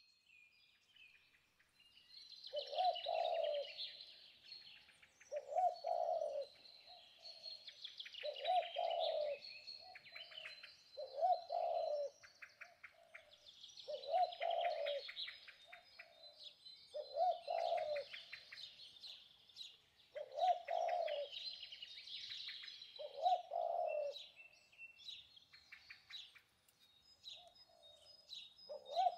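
Birdsong: a short low call repeating about every three seconds, over high chirping and trilling from small birds.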